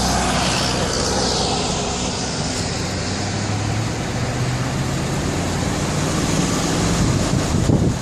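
A motor vehicle's engine running under a steady rushing noise, with wind buffeting the microphone near the end.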